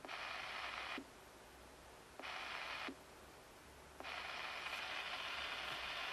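Stabo xm 3001e CB radio's receiver hiss from its speaker, with the antenna disconnected and the volume at maximum: the radio's own receiver noise. It cuts in and out with a click as the squelch opens and closes. It stops about a second in, returns briefly, and comes back steadily about four seconds in.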